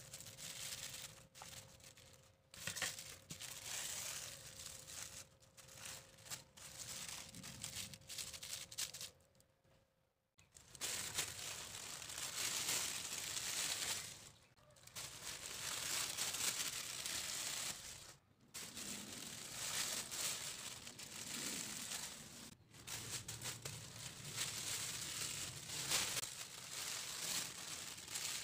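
Thin plastic sheet crinkling and rustling in bursts, with a few short pauses, as it is pressed over and peeled off flattened rice-cracker dough.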